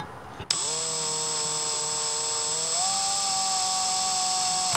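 Makita 18V cordless drill driving a screw into a router's mounting plate. Its motor whine starts suddenly about half a second in and steps up in pitch a little past halfway as the motor speeds up.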